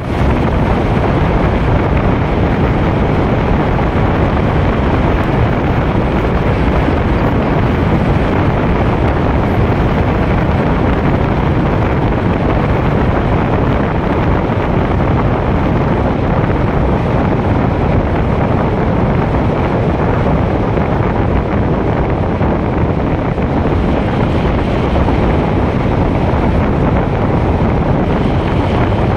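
Steady, loud rushing noise of a car driving through a road tunnel: air rushing past the car's side window and buffeting the microphone, mixed with tyre and traffic noise.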